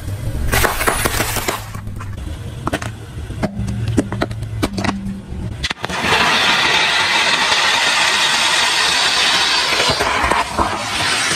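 A car rolls over sealed snack packets with its engine idling low, giving crackling, crunching and a burst as the packets split. About six seconds in, this gives way to the louder, steady hiss of a firework fountain spraying sparks, which fades near the end.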